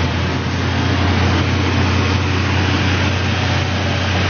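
Heavy construction machine's engine running steadily with a low drone and a wash of mechanical noise.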